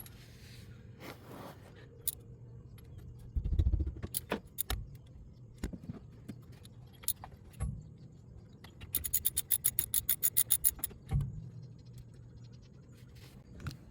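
Metal tools clinking and knocking, then a ratchet wrench clicking rapidly for about two seconds past the middle, about eight clicks a second, as it works on the wheel hub bolts.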